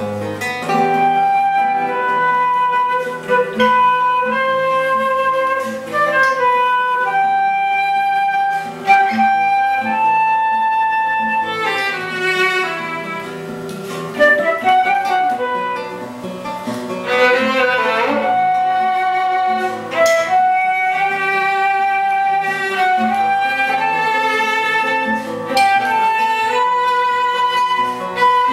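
Flute, violin and guitar playing a contemporary classical chamber piece together: long held melody notes over plucked guitar notes.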